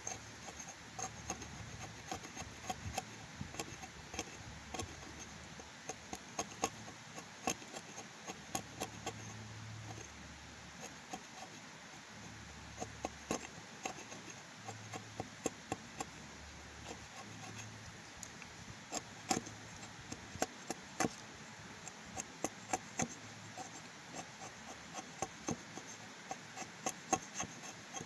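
Wood cracking and snapping in irregular sharp clicks, some much louder than others, over a steady low background.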